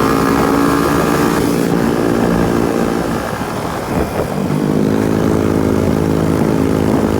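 Motorcycle engine running under way, with a haze of road and wind noise. The engine note eases off about three seconds in and picks up again about a second later.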